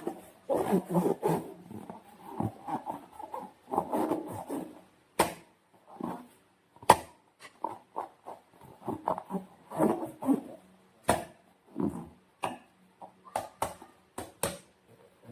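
Slime being worked by hand: a string of irregular squelches and sticky clicks, some sharp, coming a few to the second.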